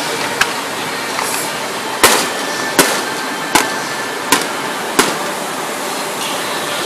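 Fireworks going off: a small pop near the start, then five sharp bangs about three-quarters of a second apart, beginning about two seconds in.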